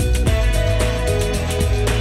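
Upbeat intro theme music with a steady beat, bass line and sustained notes.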